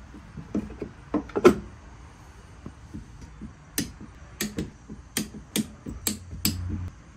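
Socket ratchet wrench clicking in a string of sharp clicks, about two a second, as bolts on a Tillotson 212 engine's crankcase side cover are tightened. It follows a few metal knocks and one loud clunk of tools against the engine block.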